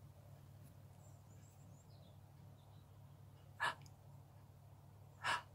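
Two short breaths close to the microphone, about a second and a half apart, the second a little longer, over a faint steady low hum.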